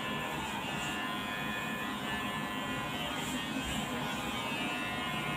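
Electric hair clippers running with a steady buzz while trimming short hair at the side of the head.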